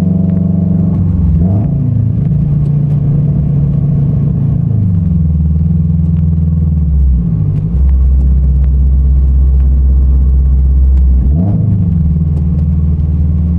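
Catless, straight-piped Subaru BRZ flat-four boxer engine, loud from inside the cabin. About a second and a half in, a quick throttle blip rev-matches a downshift from fifth to fourth. The engine note then eases down and holds steady, and a second quick blip comes near the end.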